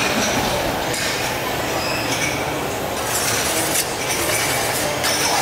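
Bowls, spoons and dishes clinking again and again over the steady clatter and hubbub of a busy noodle soup shop.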